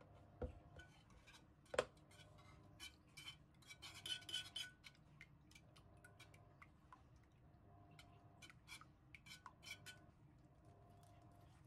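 Wire balloon whisk beating an egg-and-milk batter in a baking dish, its wires clicking and tapping against the dish sides with soft liquid swishing. The tapping is quiet and uneven, busiest about four seconds in and again near the end.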